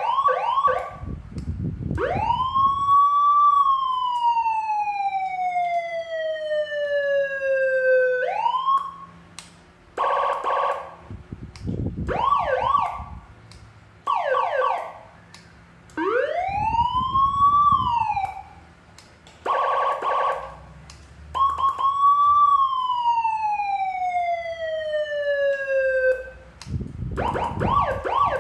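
A 12-tone electronic siren module cycling through its tones. There are long wails that rise quickly and then fall slowly over several seconds, quick rising yelps, and short bursts of a rapid chattering tone, with brief gaps as the tones change.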